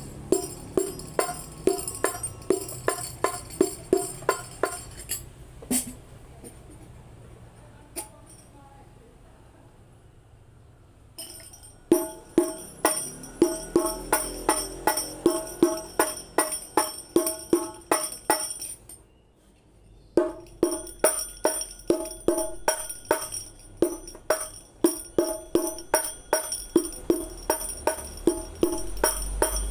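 Carved wooden rebana frame drums struck by hand in a steady beat of about two or three strokes a second, each stroke ringing bright. The playing stops about five seconds in, leaving only a few single hits. It resumes about eleven seconds in on another drum, breaks off briefly around two-thirds through, then goes on.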